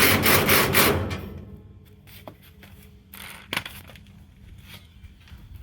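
A loud scraping rasp lasting about a second as smoker parts are worked during assembly, then a few light knocks and clicks of parts being handled.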